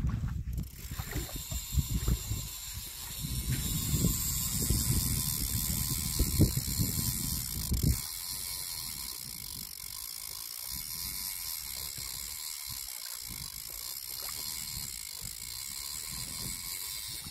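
Spinning fishing reel being cranked to bring in a hooked carp, its gears whirring and ticking. A low rumble drops away about eight seconds in.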